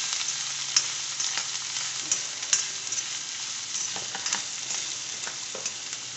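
Chopped onion sizzling in hot oil in a kadai, frying at the start of cooking, with a steel spatula scraping and clinking against the pan as it is stirred.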